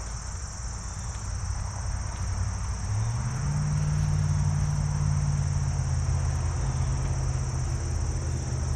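Steady high insect chirring, with a low buzzing hum of honeybees at an open hive that swells in about three seconds in and holds.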